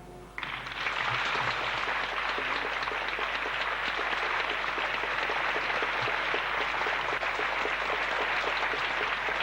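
Theatre audience applauding steadily. The clapping starts about half a second in, just as the orchestral music dies away.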